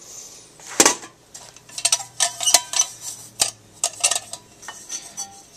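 Metal camping cookware being handled and set down on a table: a canteen cup, stove and lid clinking and clattering in a string of separate knocks, the loudest about a second in.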